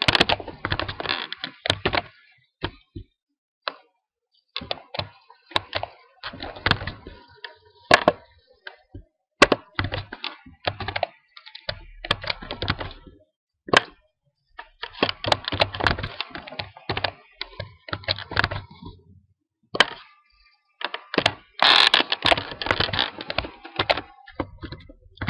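Computer keyboard being typed on in several bursts of rapid keystrokes, with short pauses between them.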